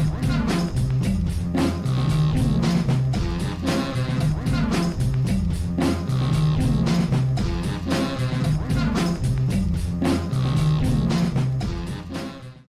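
Rock music with guitar and drums and a steady beat, fading out near the end.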